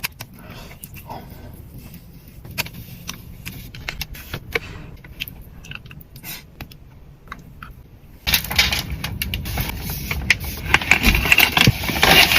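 Close-miked eating sounds of crunchy Dubai-style chocolate: scattered crackles and crunches as it is bitten and chewed. About eight seconds in, the sound turns suddenly louder, with dense crunching over a low rumble.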